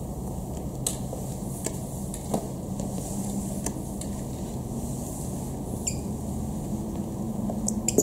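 A steady low mechanical hum, with a few light, irregularly spaced clicks from work shoes stepping on a wet, glossy tile floor.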